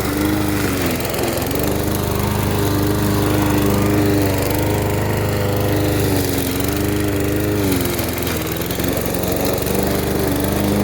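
Gasoline lawn mower engine running steadily, its pitch dipping briefly and recovering twice.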